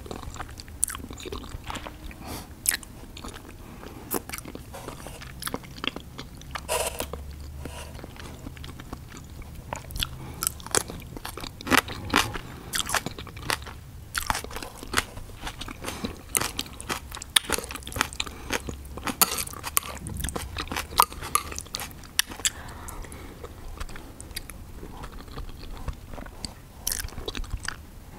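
Close-miked eating sounds: a mouth chewing and slurping cheesy noodles, with many short wet, sticky mouth clicks.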